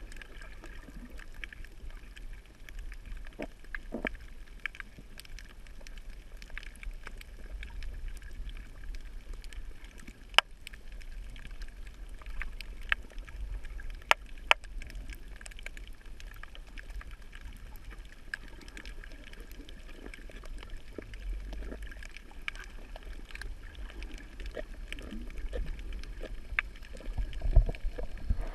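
Underwater sound of a snorkeler's camera gliding over a coral reef: a steady low water rumble with scattered sharp clicks and crackles, a few of them much louder. The low rumble swells in uneven surges near the end.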